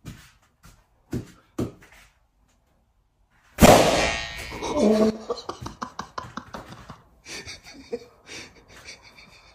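Two quick soft whacks of a foam pool noodle, then a much louder sudden hit about three and a half seconds in with a ringing tail that fades over a second or so, followed by scattered lighter knocks and breathing.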